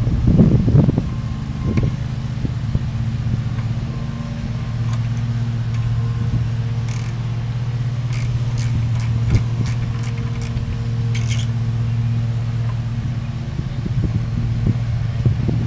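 A steady low mechanical hum runs throughout, the loudest sound. Over it, a socket ratchet clicks in a few short runs between about seven and eleven seconds in as bolts on a lawnmower engine are worked, with handling knocks in the first second.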